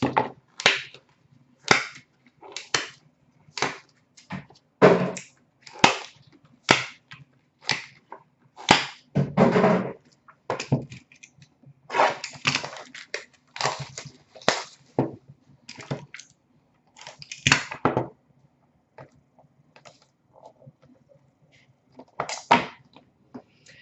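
Plastic shrink wrap on a sealed hockey card box crinkling and crackling as the box is handled: irregular sharp crackles, several a second, with a quieter stretch shortly before the end.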